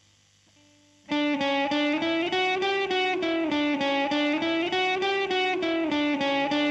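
Song intro: a guitar comes in about a second in, picking a steady, repeating pattern of notes, about four or five a second.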